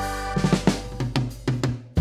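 Background music: a held chord fades away, then a drum fill of about eight quick hits.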